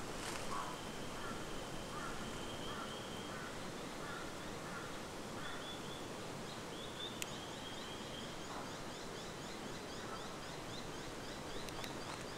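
Australian bushland ambience with birds calling: a thin, high call held for about three seconds, then a run of rapid, evenly repeated high chirps from about halfway through.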